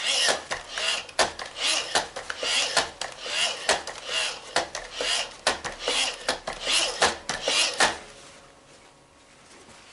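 Paper towel wiped back and forth over a Roomba's plastic wheel and housing in quick repeated strokes, with light scraping and clicks of hard plastic, stopping about eight seconds in.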